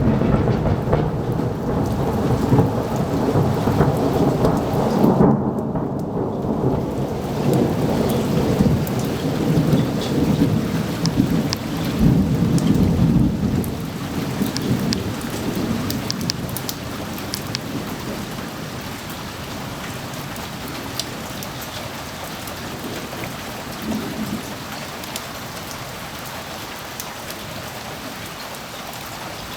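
Thunder rumbling low and long over steady rain, the roll fading out about halfway through and leaving the rain falling on its own, with scattered drops ticking close by.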